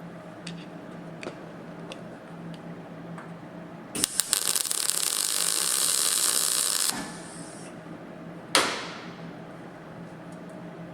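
MIG welder laying a tack weld into an inside corner of a steel sill: about three seconds of loud crackling, sizzling arc starting about four seconds in, the trigger held a little longer so the weld goes right in. A faint hiss follows briefly, then a single sharp knock.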